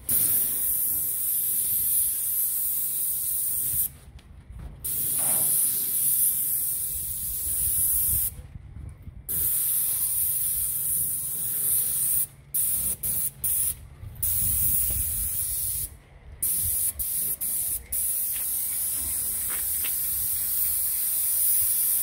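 Airless paint spray gun, a Graco Ultra Max II 490 with a 310 fine-finish tip, hissing as latex paint is sprayed in passes. The hiss stops and restarts several times where the trigger is released between strokes.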